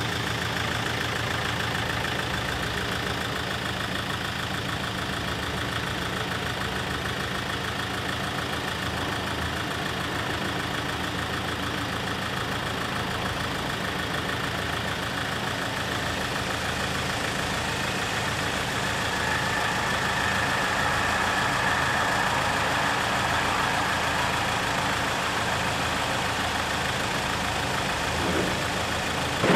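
Road vehicles idling at a closed railway level crossing, with the crossing's warning bells ringing steadily.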